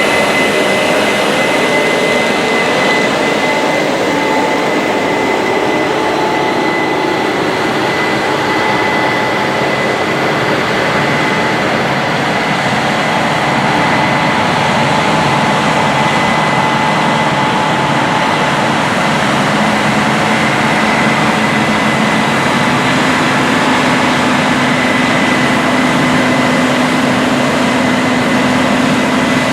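Heavy Case IH farm machinery running steadily at work: a loud, even engine and machinery noise with a high whine. A lower hum steps up in pitch about two-thirds of the way in.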